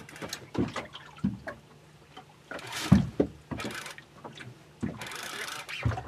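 Water slapping a small boat's hull with irregular knocks, and two bursts of a boat-fishing reel being wound as a hooked conger eel is pumped up out of a snag on the bottom.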